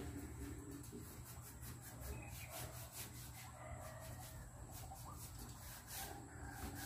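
Faint bird calls, a few short wavering cries about two and a half and six seconds in, over a steady low hum and light clicks.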